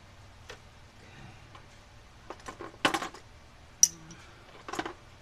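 A few scattered knocks and clinks of tools and small metal parts being handled, the sharpest a brief metallic ping.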